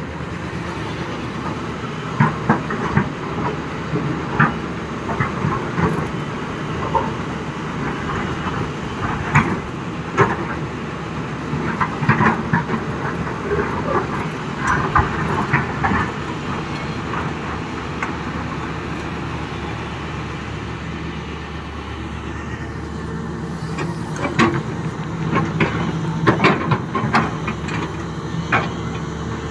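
Excavator's diesel engine running steadily while rock clatters and knocks against the bucket in repeated bursts, with a calmer stretch in the middle.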